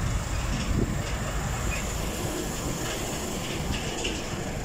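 Loaded MAN truck moving off slowly, its diesel engine and tyres giving a steady low rumble.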